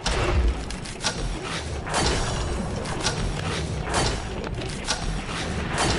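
Dense, continuous clatter of quick metallic clicks and knocks from tools and steel parts as a red engine stand is assembled.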